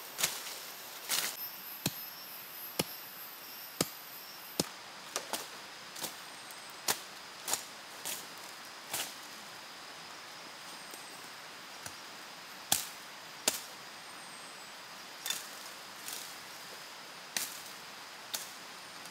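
A series of sharp knocks, roughly one a second and sometimes in quick pairs, with a pause of a few seconds about halfway through, over a faint steady hiss.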